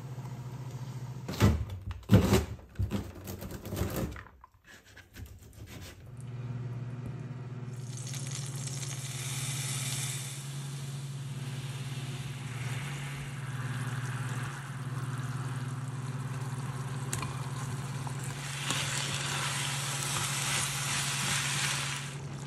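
Minced garlic and oyster sauce sizzling in a frying pan over a steady low hum. The sizzle swells twice, once about ten seconds in and again near the end. In the first few seconds there are a few loud splashes as chicken breast goes into boiling water.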